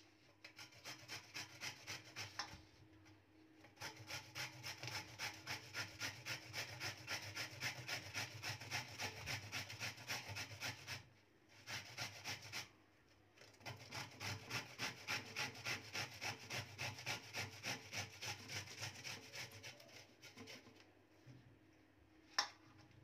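Bottle gourd being grated on a stainless-steel box grater: quick, even rasping strokes, about four a second, in long runs broken by a couple of short pauses. A single sharp click comes near the end.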